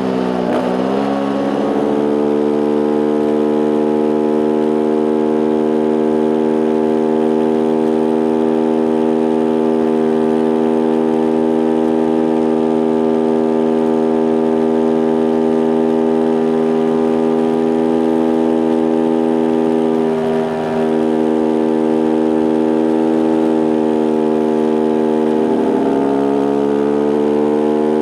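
Beta RR 125 supermoto's single-cylinder engine held near its top revs at top speed, a steady high-pitched drone. The pitch drops and climbs back about a second in, then holds level for a long stretch and rises again near the end.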